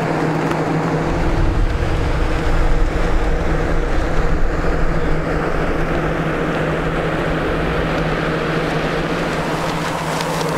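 A steady mechanical hum holding one pitch, with a low rumble of wind buffeting the microphone for a few seconds near the start.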